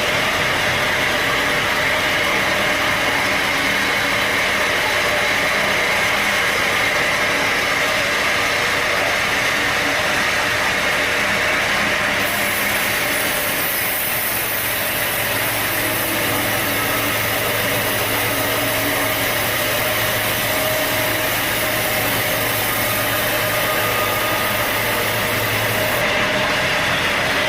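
Sawmill machinery running steadily: an engine-driven mill with an even mechanical noise and a low hum.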